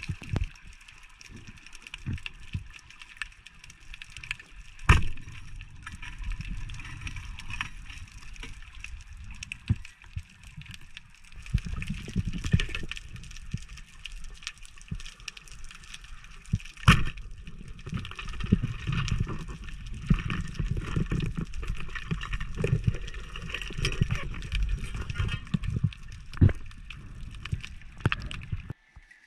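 Underwater sound picked up through a camera housing: a muffled, uneven rumble of moving water with a faint crackle and scattered small clicks. There are two sharper knocks, about five and seventeen seconds in. The sound cuts off near the end.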